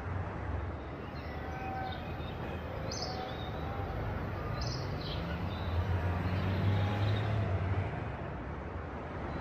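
Outdoor ambience: scattered short bird chirps over a steady low rumble, a little louder from about six to eight seconds in.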